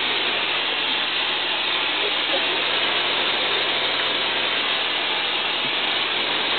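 A self-service car-wash pressure-washer lance fires a high-pressure jet of water onto bare skin and a metal wall, as one steady, unbroken hiss of spray.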